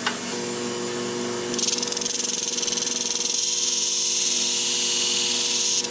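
A flat-hone shear sharpening machine's motor comes on with a steady hum just after the start. About a second and a half in, a steady high hiss joins it as the shear blade's edge is ground against the spinning abrasive disc.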